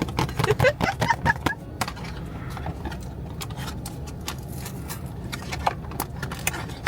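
Blind-box packaging being handled and opened: quick crinkles and sharp clicks of cardboard and plastic, busiest in the first two seconds and sparser after, over a steady low hum.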